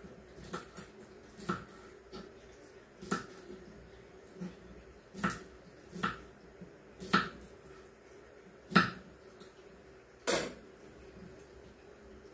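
Kitchen knife cutting vegetables on a wooden chopping board: about eight or nine single sharp knocks of the blade against the board, spaced unevenly a second or two apart, over a faint steady hum.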